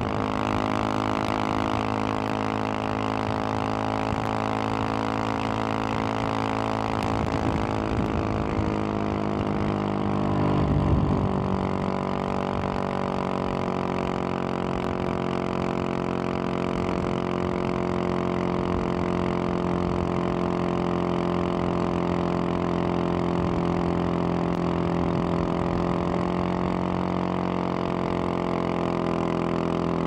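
Husqvarna 701 Supermoto's single-cylinder engine through an aftermarket Wings exhaust, running at a steady cruising speed. The engine note shifts lower with a brief swell about ten seconds in, then falls right at the end as the bike slows.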